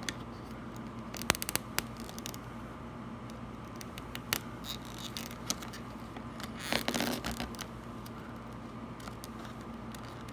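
Small clicks, taps and scrapes of stiff solid feeder wire being bent by hand and worked against model railroad track rail, with a brief louder scrape about seven seconds in.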